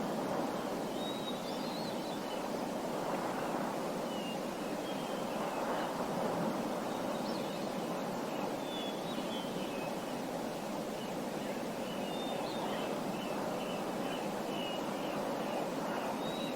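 Small birds chirping in short scattered calls, with a quick run of chirps near the end, over a steady rushing background like running water.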